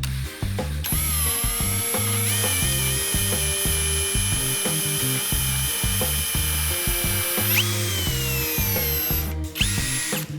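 Power tool motor whining at a steady high pitch over background music with a steady beat. About seven and a half seconds in, the whine jumps in pitch and then slides down as the tool spins down. It stops near the end, with one short burst just after.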